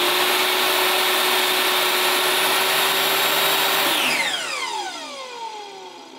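Corded 10-inch table saw running at full speed while it cuts a notch partway into a deck board. About four seconds in it is switched off and the blade winds down, its whine falling in pitch and fading.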